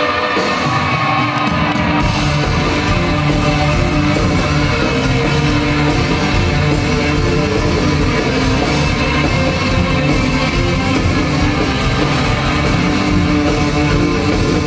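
Rock band playing live: electric guitar, bass guitar, keyboards and drum kit. The bass and drums come in about two seconds in and the full band plays on from there.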